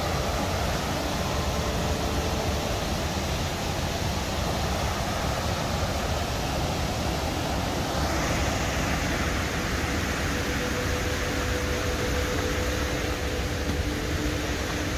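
Rushing stream water: a steady, even roar that turns brighter and hissier about eight seconds in.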